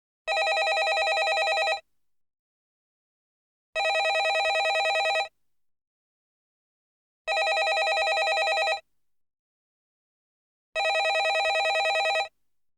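Landline telephone ringing: four rings of about a second and a half each, a rapid trill within each, repeating every three and a half seconds with silence between.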